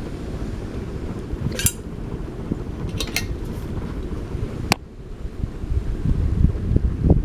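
Hunter Stratford 52-inch ceiling fan running on high, its airflow buffeting the microphone as a steady low rumble. A few light clicks and clinks sound over it, the sharpest about three-quarters of the way through.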